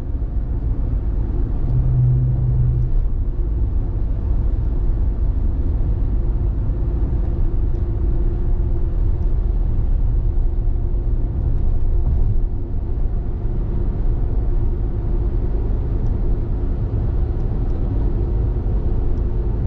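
Steady low road and engine rumble heard inside a Mitsubishi Delica's cabin while driving, with a brief low hum about two seconds in.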